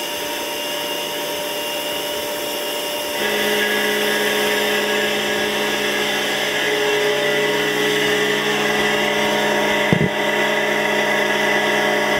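Tormach CNC mill cutting under flood coolant: a steady spindle whine and cutting noise that grows louder and higher about three seconds in as the cutter works. A single short knock about ten seconds in.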